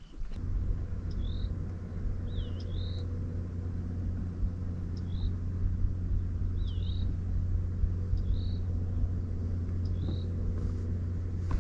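Bass boat motor coming on just after the start and running with a steady low hum. A bird calls again and again over it, with short rising and looping whistles.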